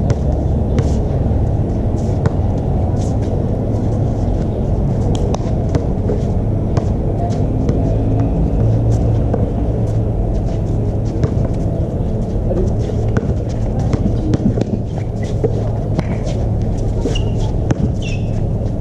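Steady low rumble with scattered sharp knocks of a basketball bouncing on the court and players' footfalls, and a couple of short sneaker squeaks near the end.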